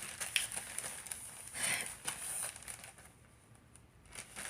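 Packaging being handled and opened, rustling in irregular bursts with small clicks, loudest about two seconds in and quieter near the end.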